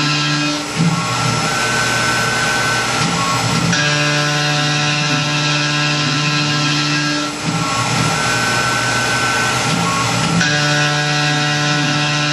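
Tormach PCNC 1100 CNC mill's spindle running while it mills aluminum stock: a steady mechanical whine over a cutting hiss. The tone shifts every three to four seconds.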